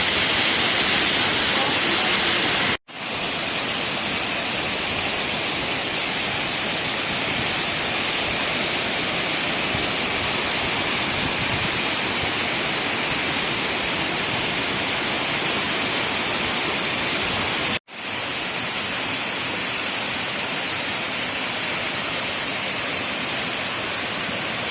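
Waterfall in monsoon flow: water falling and rushing as a steady, dense noise. It cuts out for an instant twice, about three seconds in and again near eighteen seconds, each time coming back at a slightly different level.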